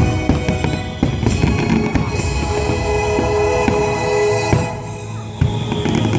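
Fireworks bursting over loud show music with a heavy drum beat.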